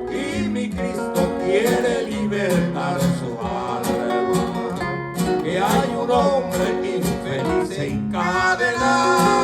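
Guitar accompaniment to a Spanish-language hymn, with a voice singing briefly in places.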